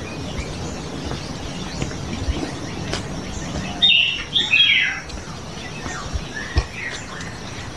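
A bird calling: a short burst of chirps and squawks about four seconds in, and a fainter call a little later. Underneath runs a steady rustle with a few soft thuds from someone walking through brush on a dirt trail.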